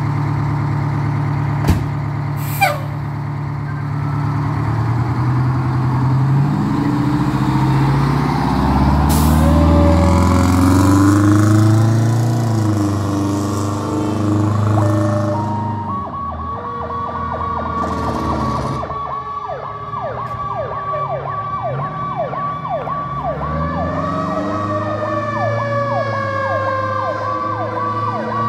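Fire engine's diesel engine idling, with two sharp knocks near the start, then revving up as the truck pulls away. About halfway through its siren comes on: a fast repeating yelp, with a second siren tone slowly winding up and sliding back down beneath it.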